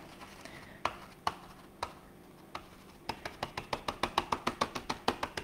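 A stencil brush tapping straight down through a plastic stencil onto a chalkboard. A few scattered taps, then about two seconds in a quick, even run of dabs, about six a second.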